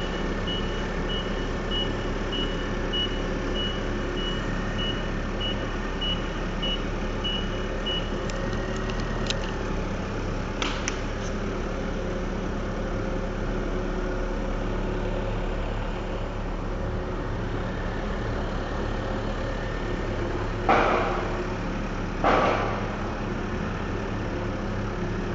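A heavy machine's engine idling steadily while a reversing alarm beeps about twice a second, stopping about a third of the way in. Near the end come two loud sudden noises about a second and a half apart.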